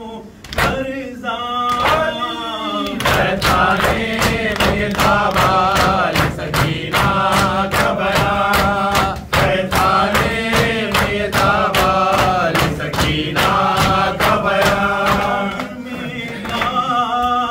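Men chanting a noha, a Muharram lament, in a steady rhythm, with hands beating on chests (matam) in time. The chanting and strikes get louder about three seconds in.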